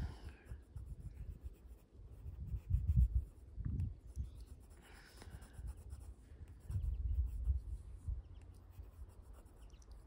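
Sailor Fude de Mannen fountain pen nib scratching and rubbing on sketchbook paper as dark ink areas are filled in, with intermittent low rumbles.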